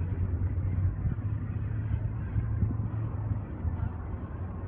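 A steady low rumble of distant engines.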